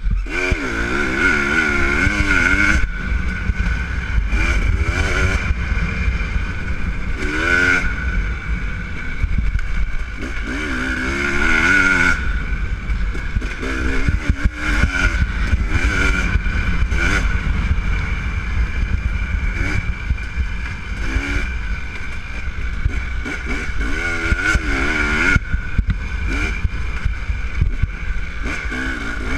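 Dirt bike engine being ridden hard on a rough trail, revving up and dropping back again and again as the throttle is worked, over a constant low rumble.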